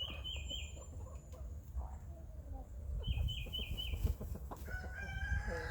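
Backyard chickens clucking, with a quick run of high chirps at the start and again about three seconds in.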